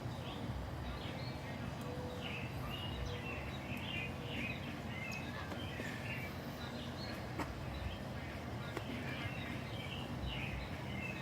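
Birds chirping repeatedly over a steady low background hum, with a few faint clicks.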